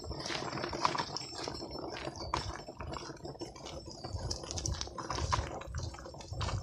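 Footsteps and a pushed stroller's wheels crunching along a dirt-and-gravel trail: a stream of irregular clicks and scuffs, with some low rumbling in the second half.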